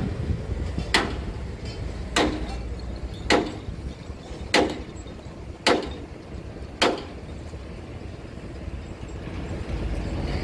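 A steady low rumble with a run of sharp knocks evenly spaced a little over a second apart, which stop about seven seconds in.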